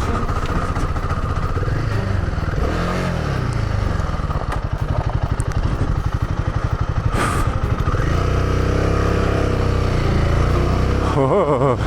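Royal Enfield Himalayan 450's single-cylinder engine running at low speed over a rocky dirt track, its revs rising and falling with the throttle. From about two-thirds of the way in the engine note holds steadier and a little stronger.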